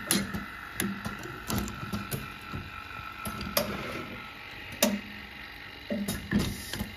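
Automatic jewelry wax injection machine running, its air-driven mechanism clicking and knocking at irregular intervals. A steady high tone fades out about halfway through.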